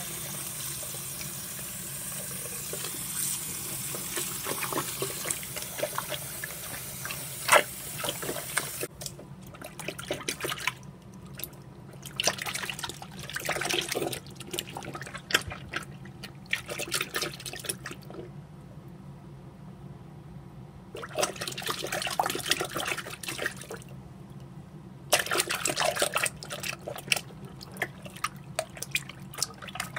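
Water tap running steadily into a sink of soapy water, cutting off about nine seconds in; after that, water splashing and sloshing in short bouts as a hand in a dinosaur hand puppet swishes through it.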